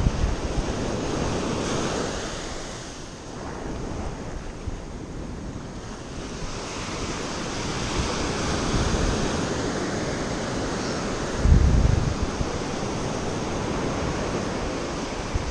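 Surf breaking on a sandy beach, a steady wash that swells and fades. Wind buffets the microphone in low rumbles, the loudest about three-quarters of the way through.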